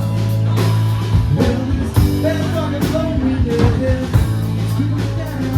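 Live blues-rock band playing: electric guitar and bass over a drum kit, with sustained bass notes and regular drum and cymbal hits.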